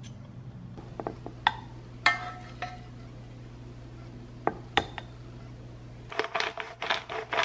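Dishes and cutlery clinking: a few separate clinks, some with a short ring, then a quicker run of clattering near the end. Under them is a low steady hum that cuts off about six seconds in.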